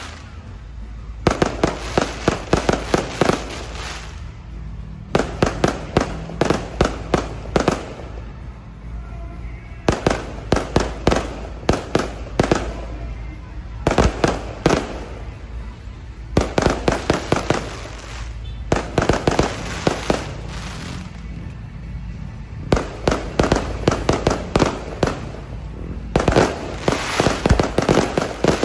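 Aerial fireworks going off in rapid volleys of sharp bangs, each volley lasting a few seconds with short lulls between, about seven volleys in all, with music playing faintly underneath.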